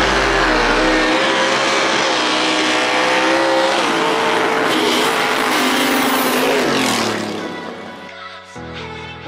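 Two drag-racing cars launching and accelerating at full throttle, their engine notes climbing and dropping back through gear changes. The engine sound fades after about seven seconds, and music takes over near the end.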